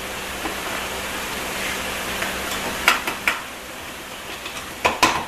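Sun gear shell being worked out of a Ford 4R75E transmission case, steel parts clinking against each other: a few sharp clicks about three seconds in and again near the end, over a steady hiss.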